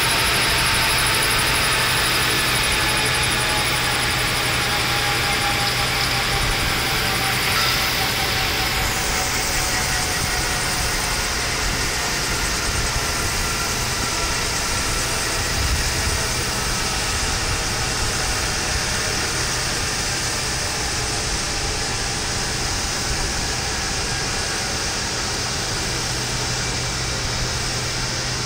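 Air ambulance helicopter running on the ground after landing: a steady turbine whine and rush of rotor air, slowly easing in level, with a faint whine sinking a little in pitch early on.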